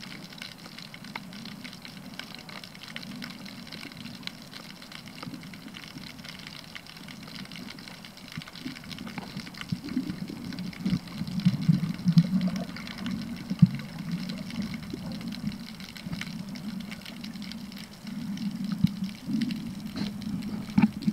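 Muffled underwater sound heard through a submerged camera: a steady low watery rumble with a faint hiss and scattered small clicks, swelling into louder surges of moving water about halfway through and again near the end.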